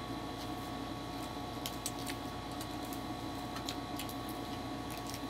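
Quiet sounds of people eating with their hands: scattered light clicks and soft handling noises of food, plates and utensils, over a steady hum.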